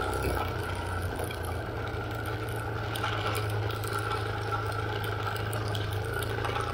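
Motorcycle engine running at a steady pace while riding a dirt road, with light rattles and ticks over the engine's hum.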